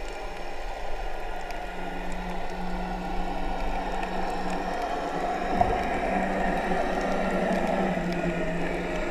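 Muffled underwater sound through a camera's waterproof housing: a steady low hum with a hissing, gurgling haze and scattered faint clicks, and one dull knock about halfway through.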